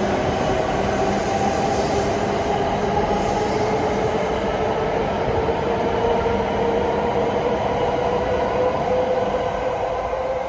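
W7 series shinkansen accelerating out of the station past the platform: a steady rush of the moving cars with an electric motor whine that climbs slowly in pitch as the train gathers speed.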